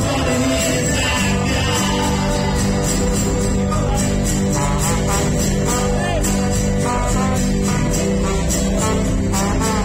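Live acoustic band music: two acoustic guitars strummed together with a trombone, at an even level throughout.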